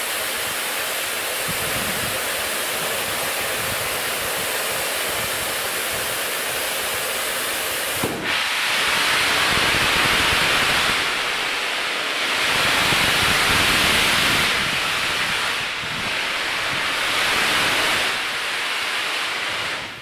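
Steam hissing from LNER A1 Pacific steam locomotive 60163 'Tornado' as it starts away from a stand. A short knock comes about eight seconds in. After it the hiss grows louder and swells and fades in slow waves as steam blows out around the cylinders.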